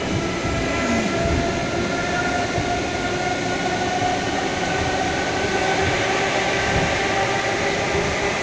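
Suburban electric train carriage running at speed: a steady rumble and rattle of the moving carriage with a steady whine over it, heard from inside the carriage.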